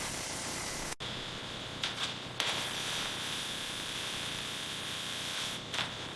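Steady machine noise with a high, even whine that starts abruptly about a second in, with a few short clicks over it.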